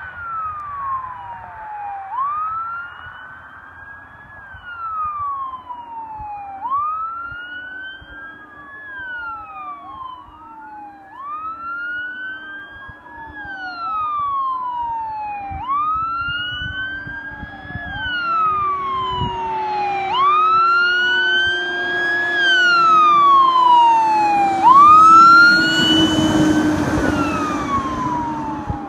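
Fire engine's siren wailing as the truck approaches and passes, each sweep rising quickly and falling slowly about every two seconds. It grows steadily louder, with a low steady tone underneath, and peaks as the truck goes by near the end, the truck's engine and tyre noise swelling with it.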